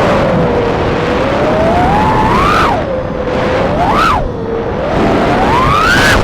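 Small 3-inch FPV quadcopter's brushless motors whining, the pitch rising and falling with the throttle. It climbs to a peak about two and a half seconds in and falls off sharply, blips up once about four seconds in, then climbs again near the end.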